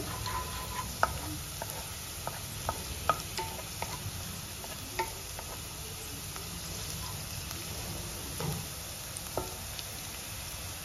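Food frying and sizzling in oil in a kadai while a spatula stirs it, clinking against the pan several times, mostly in the first few seconds.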